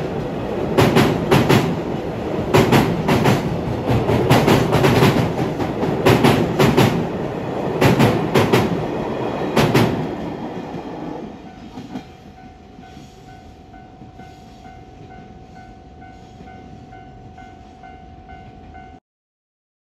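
Freight train of container wagons crossing a railway bridge: the wheels clatter over the rail joints in repeated paired clicks, fading away as the last wagon passes about ten seconds in. After that a level crossing alarm rings faintly with a steady repeated beat until the sound cuts off near the end.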